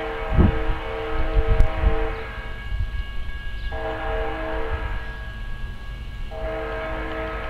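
Distant locomotive air horn sounding a chord of several notes, blown three times: a long blast, a shorter one, then another long one, from a train approaching down the line. A low rumble with a few thumps underneath in the first couple of seconds.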